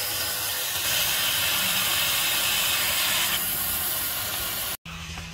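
Band saw cutting a thin wooden panel: a steady rushing noise, louder for about two seconds while the blade is in the wood, then the saw running on a little more quietly before the sound cuts off suddenly near the end.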